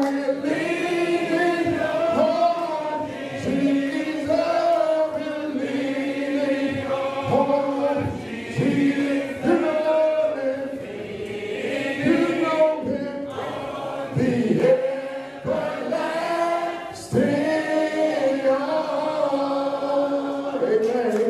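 Church congregation singing a hymn a cappella, led by a man's voice on a microphone, phrase after phrase.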